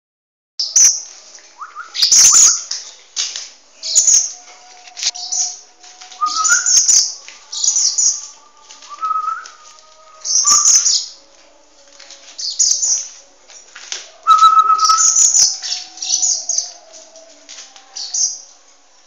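Common blackbird fledgling calling over and over: loud, high-pitched begging calls, roughly one every second or so.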